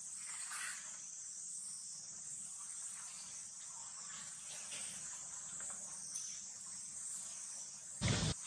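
Steady high-pitched insect chorus, crickets or similar, with faint scattered small sounds. A brief louder noise comes near the end.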